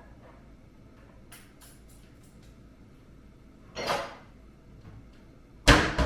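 Kitchen handling sounds: a few light clicks and taps, a short scraping rustle about four seconds in, then a loud knock and clatter near the end, like dishes or a drawer being handled.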